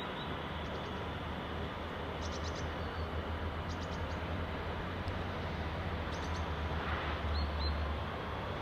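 X51 electric multiple unit running slowly through the station: a steady low hum from the train and its wheels on the rails. A few short, quick high chirps, typical of small birds, come about two, four and six seconds in.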